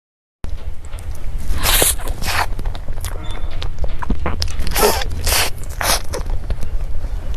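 Close-miked eating and handling noises over a steady low rumble: a series of short scraping, crunching strokes, as of biting into cake and handling its wrapper. The sound cuts in sharply about half a second in.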